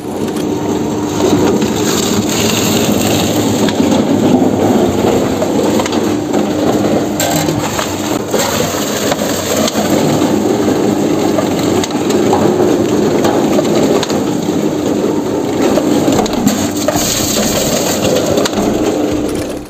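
Coconut dehusking machine, driven by a 3 HP electric motor, running and tearing the fibrous husks off coconuts. A steady motor hum runs under dense tearing and crushing noise with scattered sharp cracks.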